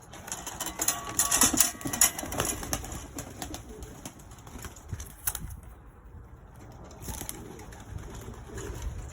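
Pigeons cooing in a loft, with a flurry of fluttering and clatter about one to two and a half seconds in and a sharp knock about five seconds in.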